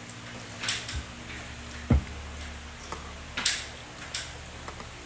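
Toddler's spoon scooping in her bowl: a few scattered taps and scrapes of the spoon against the bowl, with one heavier knock about two seconds in.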